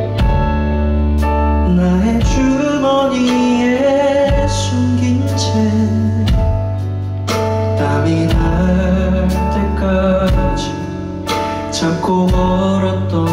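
Live band music: a slow song with steady drum hits, sustained bass and chords from electric guitar and keyboard, and a lead melody line that bends in pitch over them.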